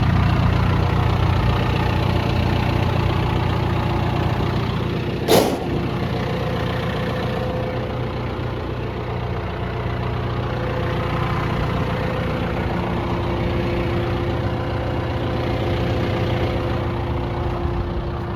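John Deere 4.5-litre diesel engine of a 160G LC excavator idling steadily. A single sharp knock sounds about five seconds in.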